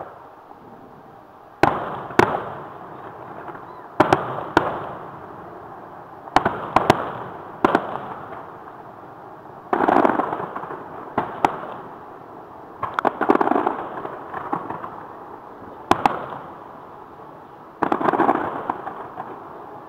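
Aerial fireworks shells bursting, a series of sharp reports every second or two, often in close pairs, each trailing off in a rolling echo.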